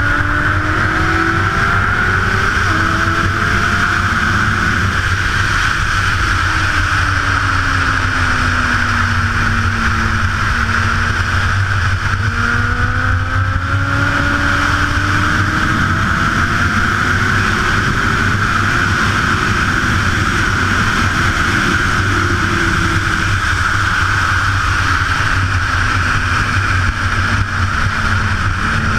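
Sport motorcycle engine running hard at speed, its pitch rising and falling several times with throttle and gear changes, under a steady loud rush of wind over the bike-mounted microphone.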